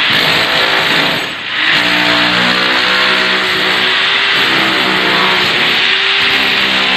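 Corded electric demolition hammer chiselling up old floor tiles and their mortar bed, a loud steady chatter that stops for a moment about a second and a half in, then starts again.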